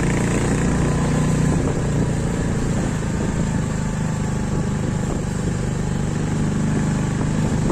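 Motorcycle engine running steadily while the bike is ridden along the road, with a steady rush of wind and road noise.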